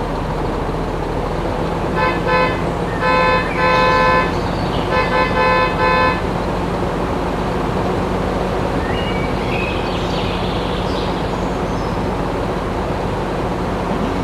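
A horn honking in a run of short toots, starting about two seconds in and lasting some four seconds, over a steady hum and background noise.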